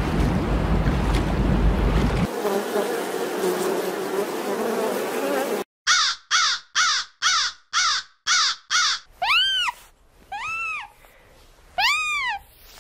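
A steady rushing noise, then about seven quick harsh caws from crows at roughly two a second, followed by three slow rising-and-falling whistled chirps from small otters.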